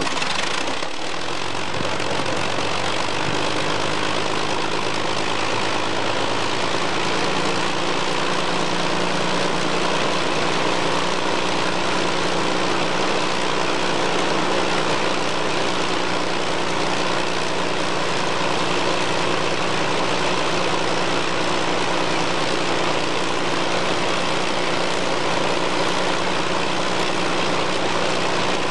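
Avro Lancaster bomber's Rolls-Royce Merlin V12 engine catching on start-up, then idling steadily, settling within the first few seconds.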